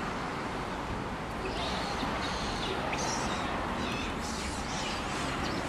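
Steady roadside traffic rumble with a run of short, high animal calls starting about a second and a half in.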